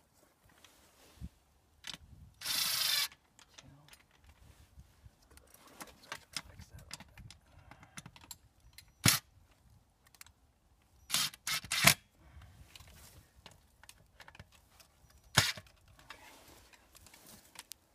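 Tools and metal parts being worked at a steel electrical disconnect box: a short noisy burst about two and a half seconds in, then a handful of sharp metallic clicks and knocks, the loudest a pair a little past halfway.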